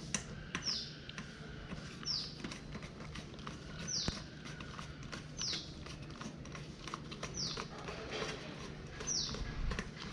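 A bird repeating a short, high, falling call about every one and a half seconds, with scattered light clicks and taps from work on the motorcycle.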